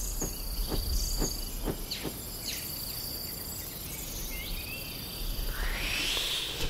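Jungle ambience: a steady high hiss of insects with a few quick falling bird-like chirps, and a rising swell near the end.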